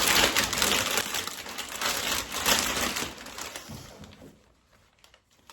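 Plastic vacuum storage bag rustling and crinkling as folded towels are handled and pushed into it, dying away about four seconds in.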